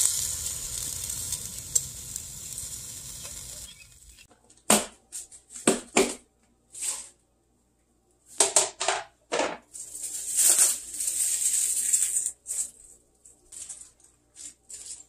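Pork belly sizzling on a charcoal grill, a steady crackling hiss that cuts off after about four seconds. Then plastic cling film crinkles in short, irregular bursts as it is peeled back from a tray.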